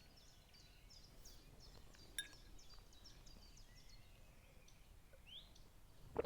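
Faint birdsong: a small bird repeating short high chirps about three a second, thinning out in the second half, with one rising note. A sharp click about two seconds in, and a louder knock at the very end.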